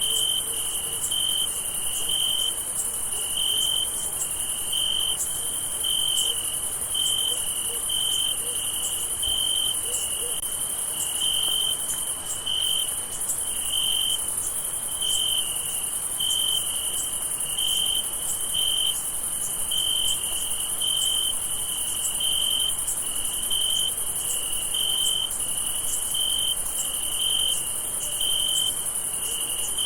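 Night chorus of crickets: one cricket chirps in a steady rhythm, about one and a half chirps a second, over a continuous very high-pitched insect trill.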